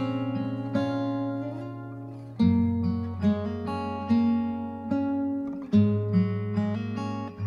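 Instrumental song intro: guitar chords picked and strummed, each chord ringing out before the next is struck, a new one about every second.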